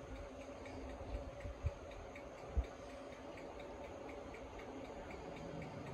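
Quiet railway platform ambience: a steady low hum with a faint, regular ticking about three times a second, and two short low bumps in the first half.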